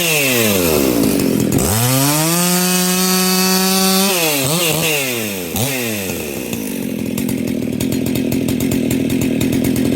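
Husqvarna 61 chainsaw with a 266 top end, a 60cc two-stroke, cutting firewood. It runs at high revs, and its pitch dips and climbs back twice as the chain loads in the wood. The second half turns rougher and lower, with fast ticking.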